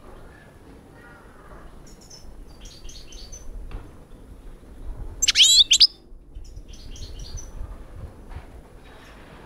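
European goldfinch twittering: scattered high chirps, with one loud, fast warbling phrase about halfway through.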